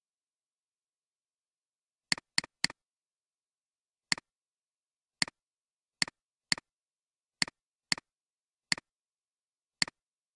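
Computer mouse clicking: eleven sharp clicks at irregular intervals, three in quick succession about two seconds in, most with a fainter second tick just after. Dead silence between them.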